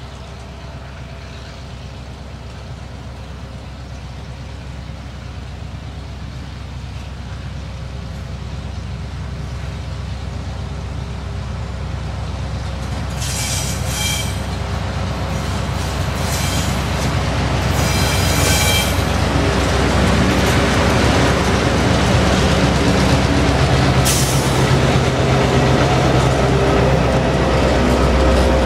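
Diesel freight locomotives, TasRail TR15 leading 2054 and 2053, approaching and passing: the engine sound grows steadily louder. The horn sounds three blasts about halfway through, a warning for the level crossing. The engines are running loudest as they pass close near the end.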